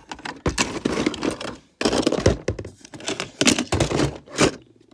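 Plastic Lego pieces clattering and clicking against each other and the plastic tub as hands rummage through them, in several clusters of rapid clicks with short pauses between.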